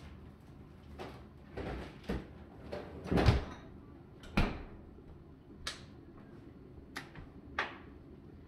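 Kitchen handling noises: a string of separate knocks and clunks as things are moved and set down, about eight in all, the loudest a little over three seconds in.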